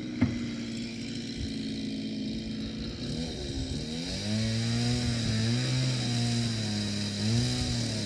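An engine running steadily. About four seconds in its note drops into a lower hum that wavers slightly up and down, as with changing revs.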